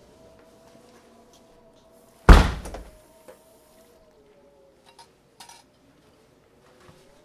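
A single loud bang about two seconds in, heavy and low with a short dying tail, over a faint steady hum; a few faint knocks follow.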